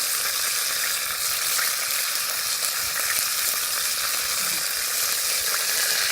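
Food sizzling steadily as it cooks on a hot surface, with a few faint clicks and pops.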